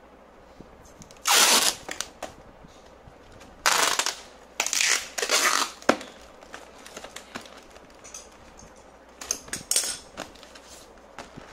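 Packing tape being pulled off its roll in loud rasping strips: three long pulls in the first half and a shorter, softer pair near the end. Between the pulls come small crackles and rubs of hands pressing the tape onto the cardboard box.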